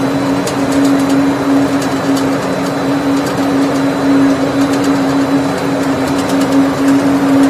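Industrial continuous snack fryer line running: a loud, steady machine hum with one strong low tone over a broad rushing noise, with a few faint ticks.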